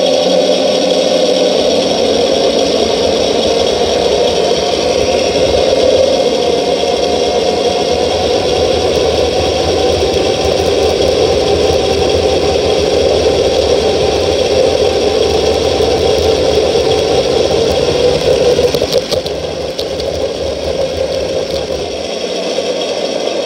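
Radio-controlled Taigen T-34 model tank driving on snow: the steady whir of its drive gearing and the rattle of its tracks and running gear, easing a little about nineteen seconds in.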